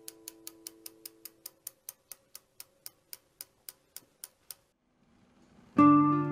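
Even ticking, about five ticks a second, that stops about four and a half seconds in, over a held chord that fades away. Near the end, a strummed acoustic guitar chord comes in loudly.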